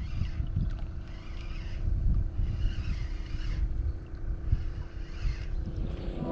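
Boat's outboard motor running steadily, a constant low drone, with uneven wind rumble on the microphone.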